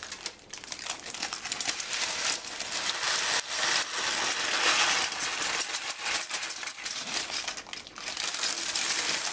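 Aluminium foil crinkling and rustling with a dense crackle as it is gathered and folded to slide cooked fonio grain into a mixing bowl. The crackle is busiest about four to five seconds in.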